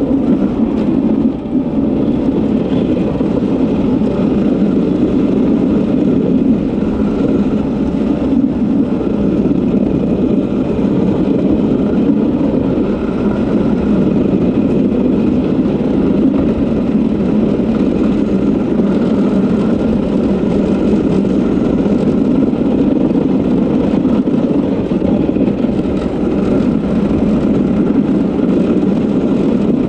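Diesel engine of a Cat track skid steer running steadily.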